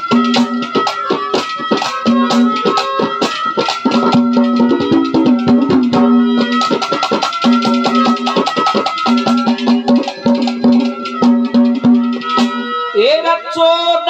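Live Haryanvi ragni accompaniment in an instrumental break: drums played in a fast, even rhythm under long held melody notes. A man's singing voice comes in near the end.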